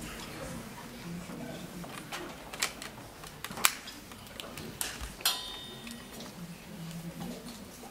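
Scattered small clicks and knocks as percussion instruments and a yangqin are handled and readied before playing, with one brief metallic ring a little after five seconds in.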